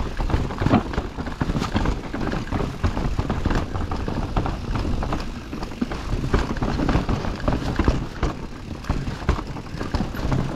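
Enduro mountain bike riding down a rough trail: a continuous clatter of knocks and rattles as the tyres, chain and frame hit rocks and roots, over a steady rushing noise.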